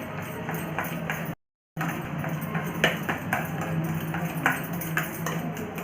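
Red banana being mashed in a bowl: a utensil knocks against the bowl over and over, a few knocks a second, with a brief gap of silence about a second and a half in.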